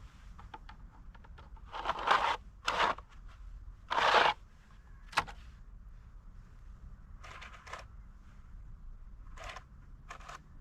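A series of short scraping, rasping sounds, the loudest about two and four seconds in, with a sharp click about five seconds in.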